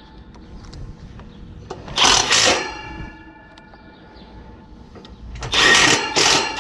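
Cordless drill/driver running in two short bursts, each with two pulls of the trigger, driving in screws to fasten a replacement condenser fan motor in place.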